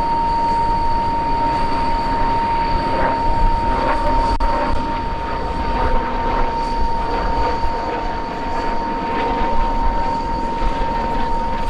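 Turbine-powered helicopter running, with a steady high whine under the rush of engine and rotor noise.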